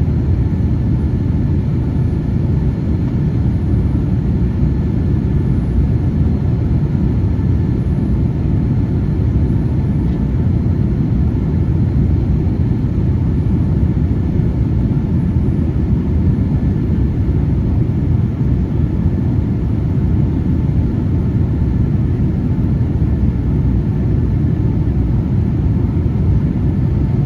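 Steady airliner noise during the climb after takeoff: jet engines and airflow as an even low rumble with a faint steady whine above it.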